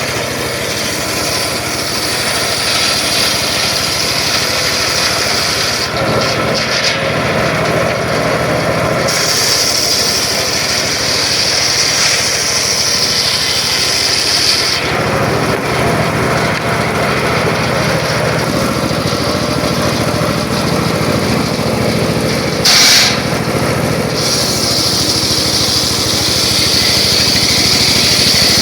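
Circular saw running steadily, going up into a higher whine for two long stretches, about nine seconds in and again near the end, as it cuts through wood. A brief louder burst comes shortly before the second stretch.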